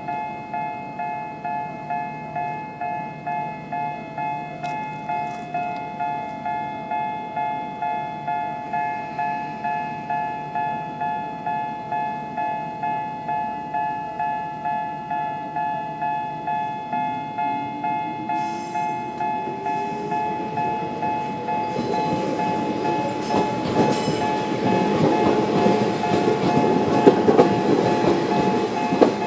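Electronic level-crossing warning bell ringing steadily in the two-tone 'Sanki' sound, about three strokes every two seconds. In the last third a Toyama Chiho Railway 14760-series electric train comes through, first with a rising motor whine and then with louder wheel noise and clattering over the rails.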